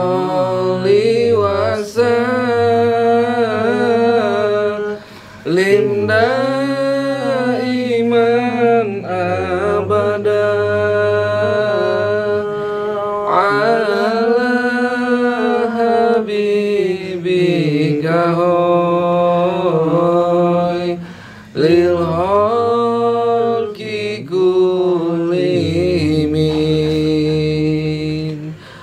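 Sholawat chanted in long, ornamented lines: a voice holding and bending its notes over a steady low accompaniment, with two brief pauses.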